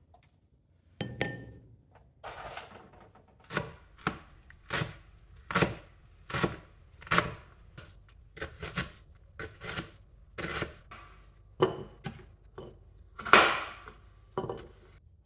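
Chef's knife chopping onion on a wooden cutting board: a knock about a second in, then steady single strokes, roughly one every 0.7 seconds, each blade hitting the board.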